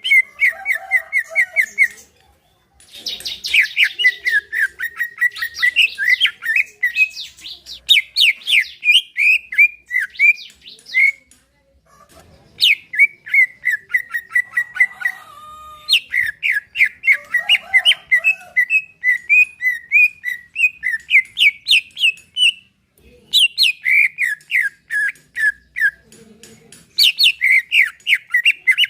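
Cucak ijo (green leafbird) singing: long, fast phrases of repeated chirping notes, broken by short pauses about two seconds in, around eleven seconds in, and twice in the last third.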